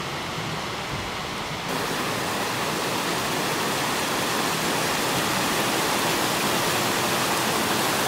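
Steady rush of water from a small creek cascading over rocks into a lake. The hiss turns brighter and a little louder just under two seconds in.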